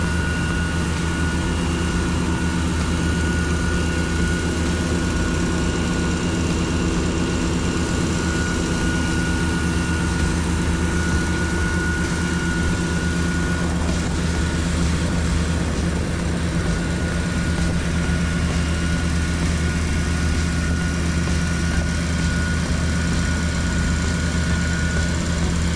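The 2005 Scania P340 tanker's diesel engine running steadily to drive the Uraca high-pressure jetting pump, with a steady high whine over its drone and the hiss of the water jet from the jetting hose.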